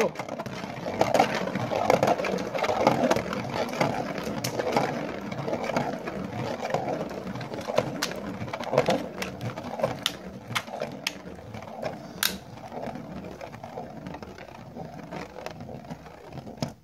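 Beyblade Burst top (Master Diabolos Generate) spinning on a plastic stadium floor: a steady whirring scrape with scattered sharp clicks, slowly growing weaker, then cutting off abruptly near the end as the top suddenly stops.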